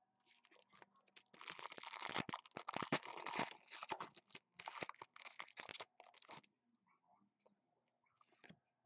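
A foil trading-card pack wrapper being torn open and crinkled by hand, a dense crackling that is loudest from about one to four seconds in and stops after about six seconds. Near the end come a few soft clicks and slides of the cards being handled.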